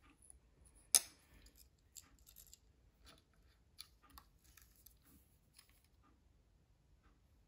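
Faint small clicks and ticks of fingers handling thin beading wire, a bead and small metal crimp tubes on a craft disc, with one sharper click about a second in.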